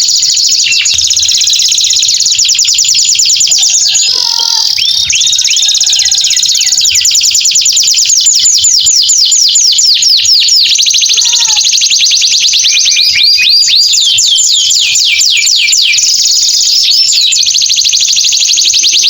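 Male canary singing a long unbroken song of fast trills, each made of rapidly repeated down-sweeping notes, shifting from one trill to the next every second or two.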